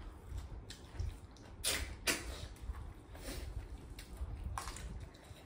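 Close-up eating sounds: chewing with a handful of short wet sucking slurps, two close together about two seconds in and more near three and four and a half seconds, over a low steady rumble.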